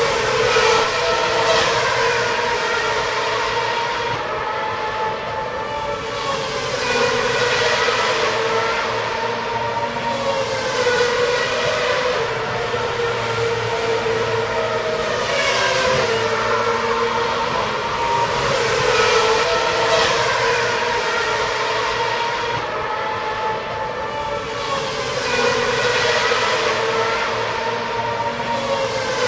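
Racing cars' high-revving engines passing one after another, each swelling in loudness and dropping in pitch as it goes by, about every four to six seconds, over a steady engine whine.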